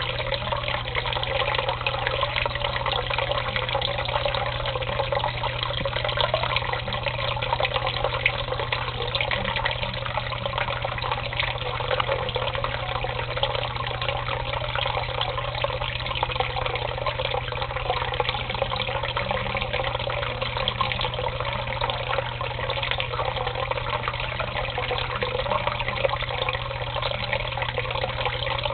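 Tap water running steadily into a shallow basin of water, an even splashing rush with no breaks.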